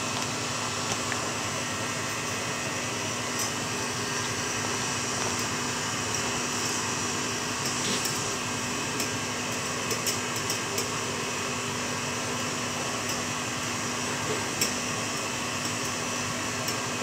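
KitchenAid stand mixer running steadily, its wire whisk beating egg whites with sugar for a macaron meringue. Faint scattered clicks of a hand whisk against a metal saucepan.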